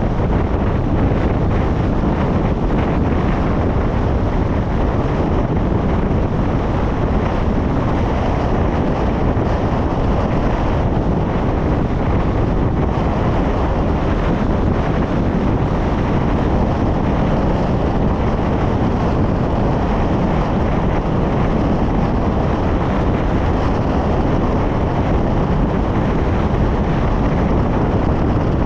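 Steady wind and road noise from a car driving at speed on a highway, with wind buffeting the microphone.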